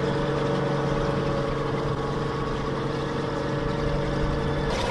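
M113 armored personnel carrier's engine running steadily with a continuous drone as the tracked vehicle drives slowly on concrete. The sound changes abruptly just before the end.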